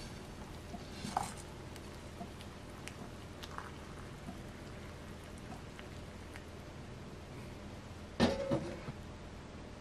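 Hot water pouring from a stainless-steel kettle into a paper cup of instant ramen, a faint steady trickle over the noodles with small ticks. About eight seconds in, a short louder clatter with a brief ring.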